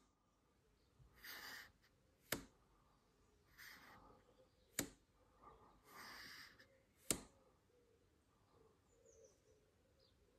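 Handling of a digital height gauge and a machined aluminium stand on a granite surface plate during measuring: three short, soft sliding scrapes, each followed about a second later by a sharp click.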